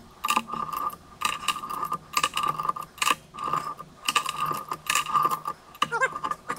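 Steel chain of a chain wrench clinking and rattling in short clattering bursts, about one or two a second, as the handle is swung back and forth and ratchets around the head of a hydraulic ram, tightening it onto the barrel.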